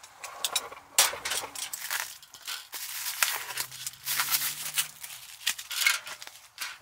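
Irregular rustling and scraping with scattered sharp clicks, coming in uneven bursts.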